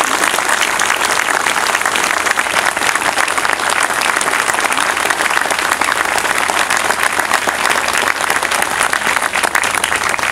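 Crowd applauding: many hands clapping in a steady, dense patter.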